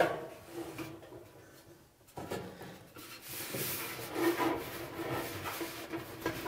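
Rubber dryer drive belt rubbing and dragging against the motor pulley and spring-loaded idler pulley as it is worked into place by hand, with a low squeaking that comes and goes. A sharp knock at the very start.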